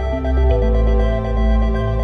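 Electronic background music: held synth notes over a deep bass line.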